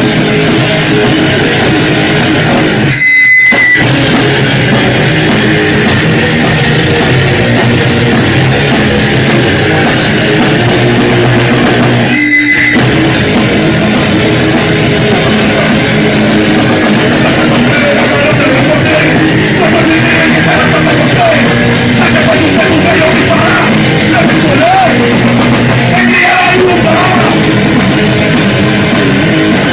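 Punk rock band playing live at full volume: distorted electric guitars, bass and drum kit, with singing.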